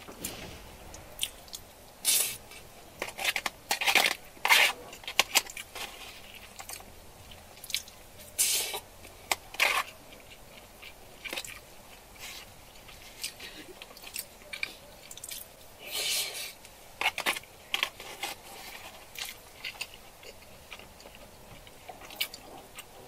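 A person chewing food close to the microphone, with irregular crunches and short sharp clicks, in louder clusters here and there.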